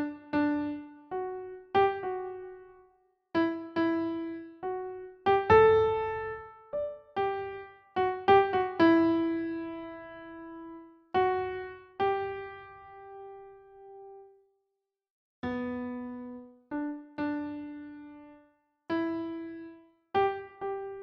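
Background music: a slow, gentle keyboard melody of single piano-like notes, each struck and then ringing away, with a pause of about a second about two-thirds of the way through.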